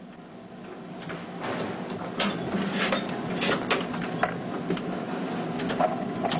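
Typewriter-style keyboard clattering with rapid, irregular key clicks, building up from about a second and a half in, over a steady low hum.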